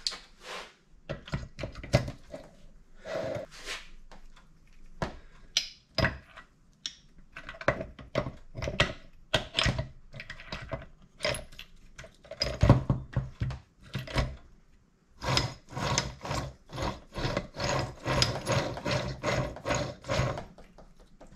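Steel transmission shafts and gear clusters clicking and knocking against each other and against an aluminium crankcase half as they are fitted by hand. The clicks come thick and fast in the last few seconds.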